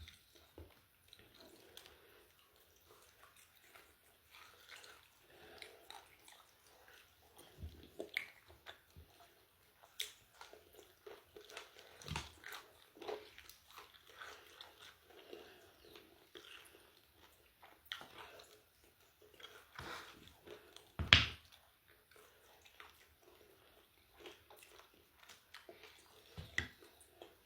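Close-up chewing and biting of crispy fried chicken chicharrón, with scattered crunches and mouth clicks. One much louder sharp knock about three-quarters of the way through.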